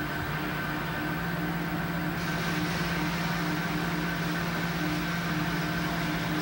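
Steady hum of running machinery, with a hiss that grows slightly louder about two seconds in.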